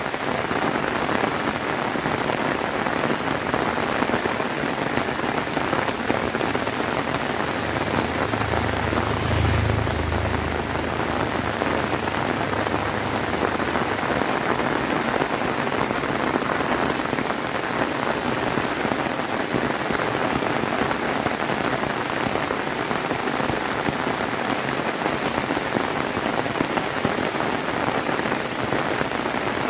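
Heavy rain falling steadily and hard. About eight seconds in, a low rumble of thunder swells and fades over several seconds.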